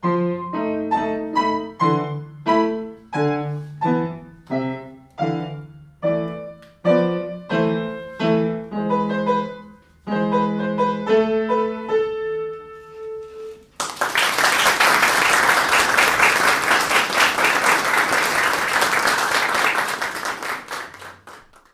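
Grand piano played solo: the closing chords of a piece, struck one after another and slowing to a held final chord. About 14 seconds in, audience applause breaks out and runs for about eight seconds before fading out.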